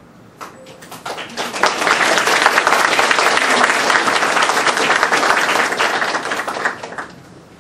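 Audience applauding: a few scattered claps fill out within about a second into steady applause, which dies away near the end.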